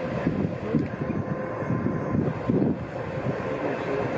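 Class 132 'Ludmilla' diesel locomotive's V16 diesel engine running as the locomotive moves slowly along the track: a steady, deep, pulsing drone with a faint steady hum above it.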